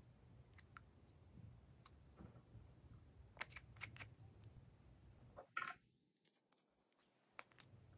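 Faint, scattered clicks and crackles of slime being mixed and squished, with a few sharper pops about halfway through, then a brief stretch of near silence.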